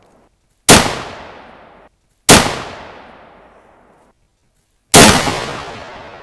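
Three rifle shots from a scoped Remington 700 bolt-action in .270, about 0.7, 2.3 and 5 seconds in, each a sharp crack followed by a long rolling echo. The echoes of the first two cut off abruptly.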